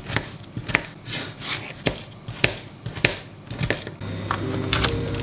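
Kitchen knife chopping vegetables on a plastic cutting board, a sharp stroke about every half second. About four seconds in the chopping stops and background music with held notes takes over.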